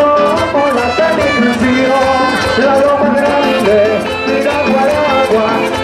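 Rhythmic Latin American music: a singing voice over steady percussion.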